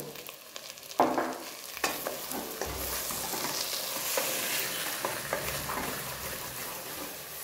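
Wooden spatula stirring and scraping a mutton fry in a steel pressure-cooker pan, with the masala sizzling as it fries nearly dry. There are a couple of knocks of the spatula about a second and two seconds in, then steady stirring.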